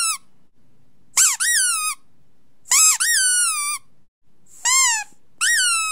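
A series of high-pitched, whine-like calls from a TikTok trend sound meant to set off a dog's reaction. There are four separate calls, each rising then dropping in pitch, and the last one near the end is held long and steady.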